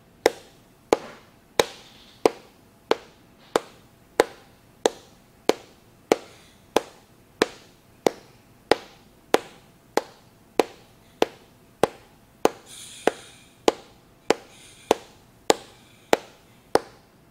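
Kapalbhati breathing: a sharp, forceful puff of exhaled breath about every two-thirds of a second, in a steady, even rhythm.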